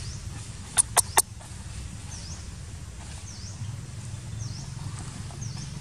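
Three sharp clicks in quick succession about a second in, over a short high chirp that repeats about once a second and a low rumble.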